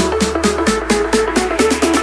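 Electronic dance music with a fast steady beat, a repeating synth melody and a heavy bass line.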